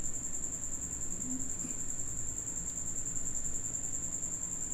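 A steady, high-pitched continuous tone over low room noise, with a brief faint low murmur about a second in.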